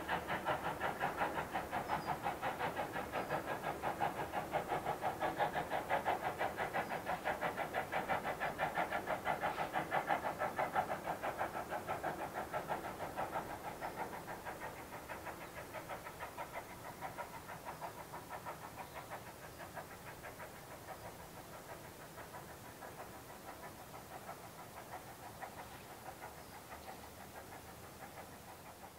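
Exhaust beats of the steam locomotive Caledonian Railway 812 Class 0-6-0 No. 828, working steam as it pulls away, a fast even chuffing that slowly fades into the distance over the second half.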